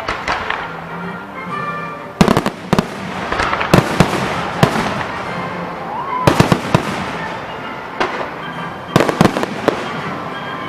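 Aerial fireworks bursting in four quick clusters of sharp bangs, several cracks in each, with a few seconds between the clusters.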